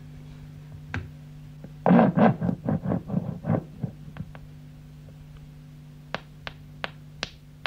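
Record crackles played back at crawling speed as magnetic tape is drawn by hand back and forth over a playback head in a tape editing block, so that each crackle sounds like a lengthy plop and can be located and measured for cutting out. A loud run of low plops comes a couple of seconds in, then scattered single clicks, all over a steady hum.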